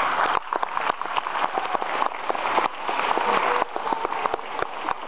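Concert audience applauding: many hands clapping together in a dense, continuous patter.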